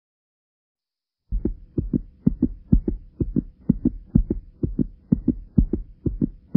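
Heartbeat sound effect: low paired thumps (lub-dub) repeating about twice a second, starting about a second in.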